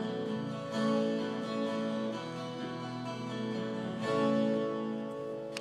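School band with an acoustic guitar playing a slow piece, closing on a long held final chord that fades out near the end.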